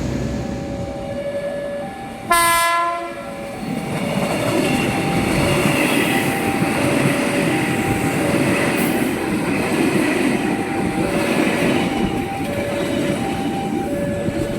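A KRL Commuterline electric train sounds one loud horn blast of about a second, a couple of seconds in, then runs past with a steady rumble and wheel clatter. A two-tone electronic beep repeats evenly throughout.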